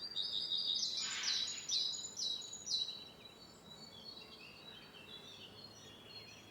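Small songbirds singing: a loud phrase of high, clear notes falling in steps over the first three seconds, then fainter chirping from other birds.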